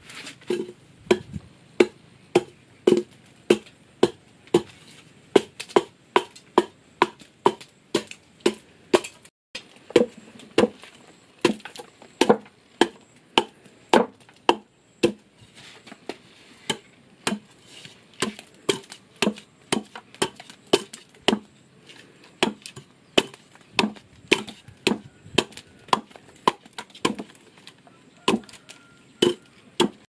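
Steady chopping into wood, a blade striking about twice a second, with a brief pause about nine seconds in.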